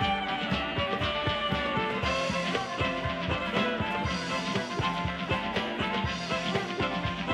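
Live contra dance band playing a dance tune, melody over a steady driving beat.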